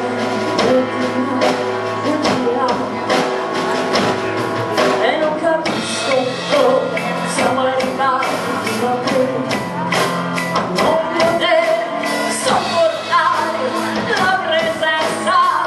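A rock band playing live: a woman singing over strummed acoustic guitar, electric guitar, bass and a steady drum beat.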